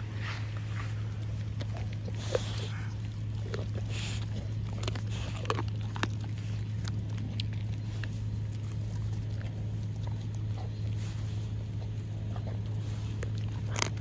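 Pit bull chewing a raw chicken leg quarter, its teeth crunching through the bones in irregular, wet cracks and clicks. A steady low hum runs underneath.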